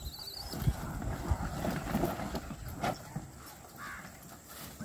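A plastic bag of food rustling and crinkling in hand as it is opened, with scattered short knocks and scuffs.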